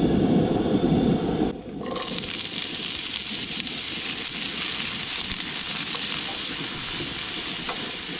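A low rumbling noise for the first second and a half, then, after a brief dip, diced potatoes hit hot oil in a frying pan on a propane camp stove and keep sizzling steadily as they are stirred with a wooden spatula.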